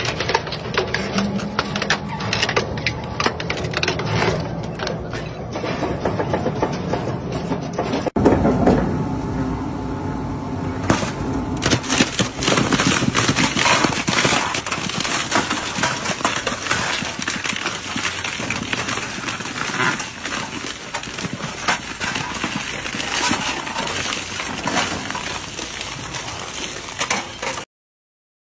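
Twin-shaft industrial shredder's toothed rotors tearing and crushing metal: a rusted steel tank, then a welded metal frame, in a dense, continuous run of cracking, crunching and sharp metal snaps. There is an abrupt change about 8 seconds in, and the sound cuts off suddenly near the end.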